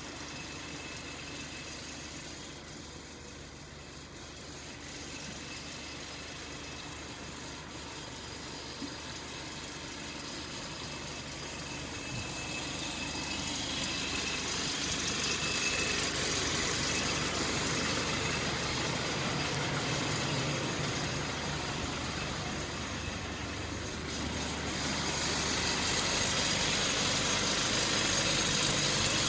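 An engine running steadily at idle, growing louder over the second half.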